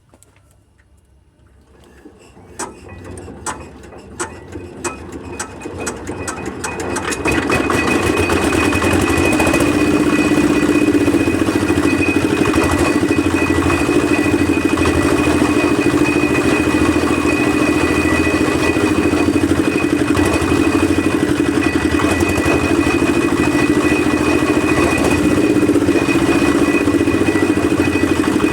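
Concrete mixer's engine starting: after a quiet second or two its firing knocks come faster and louder over about five seconds until it catches and runs steadily.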